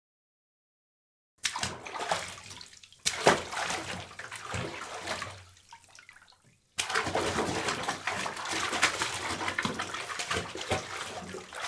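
Water running and splashing in a bathtub, in two stretches: the first starts about a second and a half in and fades out by about six and a half seconds, and the second starts abruptly about seven seconds in.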